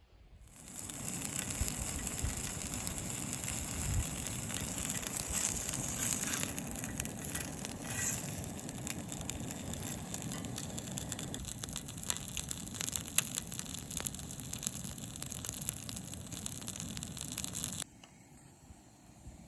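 Campfire burning and crackling: a steady hiss with a low rumble and many small snaps and pops. It cuts off suddenly near the end.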